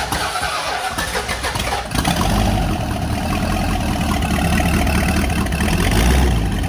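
Turbocharged Toyota Corolla engine cranking on the starter, catching about two seconds in and settling into a steady idle, with turbo whistle inserts pushed into its exhaust pipe.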